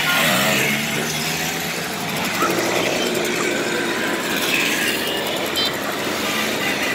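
A column of Simson 50 cc two-stroke mopeds and Schwalbe scooters riding past at low speed, many small single-cylinder engines buzzing together in a steady mix, with individual bikes passing close now and then.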